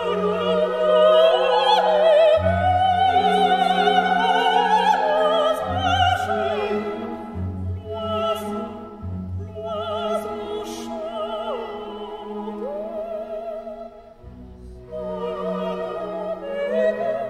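Background music: an operatic voice singing with vibrato over an orchestra, going quieter about two-thirds of the way through before swelling again.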